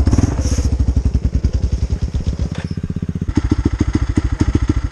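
Single-cylinder four-stroke ATV engine idling, a steady low thumping at about nine beats a second.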